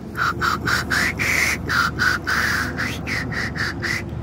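Birds chirping in a fast, even series of short calls, about four a second.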